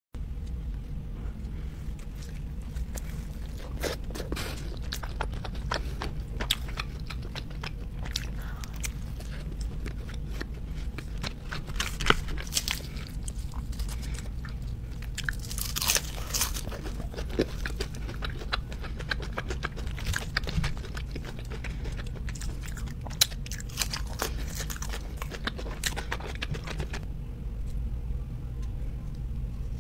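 A person biting and chewing crispy battered onion rings and a cheeseburger close to the microphone: many sharp crunches and crackles, thinning out near the end, over a steady low hum.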